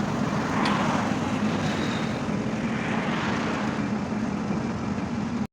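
A heavy diesel engine of road construction machinery running steadily, a low drone with mechanical noise, cutting off abruptly at the end.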